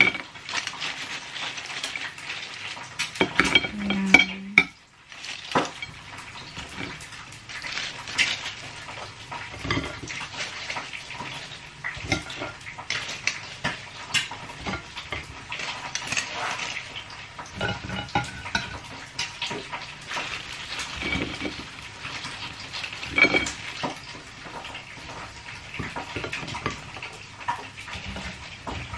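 Irregular clinks and clatter of a metal wire fry basket as fried potato chips are shaken out onto a plate, with a few louder knocks along the way.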